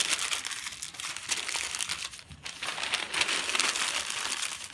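Sheets of newspaper being crumpled into a ball by hand: dense crinkling and crackling, with a short lull about halfway through before it picks up again.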